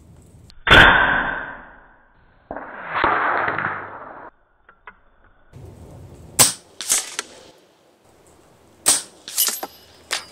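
PCP air rifle (RTI Arms Priest 2) firing: a sharp shot report about a second in that fades over about a second, followed by a second, longer burst of noise. Several short sharp clicks come near the end.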